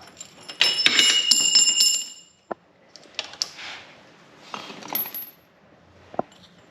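Small metal parts or tools clinking and ringing against each other for about a second and a half, like pieces set down or dropped onto metal, followed by a few scattered clicks and knocks as the engine is worked on.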